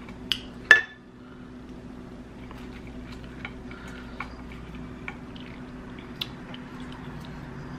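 Close-miked eating: two sharp clicks within the first second, the second a ringing clink of dishware, then quiet chewing with scattered small wet clicks and crunches.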